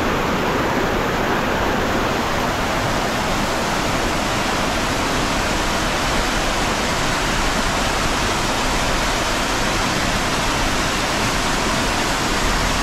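Shallow rocky stream rushing over stones, a steady loud rush of water.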